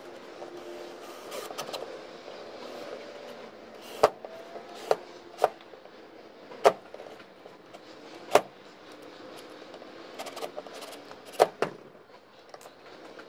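Cordless drill-driver driving reused screws into a plastic plate, its motor whirring in short spurts. The bit slips out of the worn screw heads with a series of sharp clacks, cam-out caused by the recycled screws.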